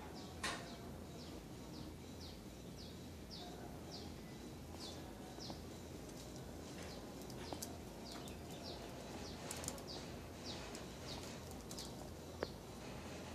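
A small bird calling over and over with short, high, falling chirps, two or three a second, with a short break about halfway through. A steady low background rumble runs underneath, with a few faint clicks.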